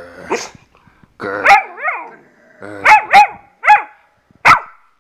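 Chocolate Labrador retriever puppy barking on command: about seven short, high barks in a row, a couple of them opening with a low growl.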